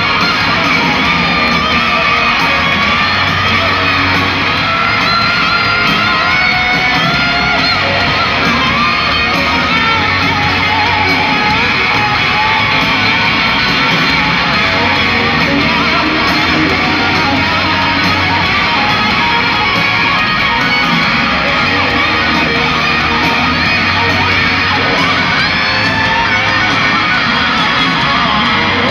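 Rock band playing live, led by an electric guitar solo with bending, sustained notes over bass and drums.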